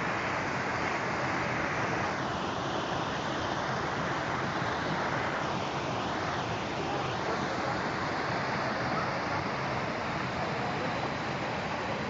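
Waterfall: a steady rush of water falling over rocks into a pool.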